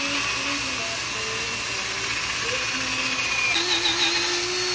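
Cordless drill spinning a wire wheel brush against a rusty steering knuckle, scrubbing off surface rust. The motor's pitch wavers as the brush is worked over the metal, then holds steady for the last second or so.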